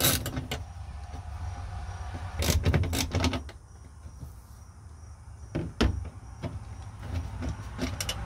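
Socket ratchet clicking as the last bolt of a car's trunk pull-down latch assembly is backed out. Then come metal-on-metal scraping and a few sharp clunks as the loose latch and motor bracket is worked free of the trunk body.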